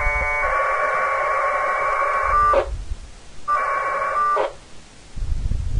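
1200-baud packet radio data bursts from the radio's speaker, a warbling two-tone buzz of a TNC exchanging packets with a Winlink gateway as it connects. One burst of about two and a half seconds, then a shorter one of about a second, with a low rumble between them and near the end.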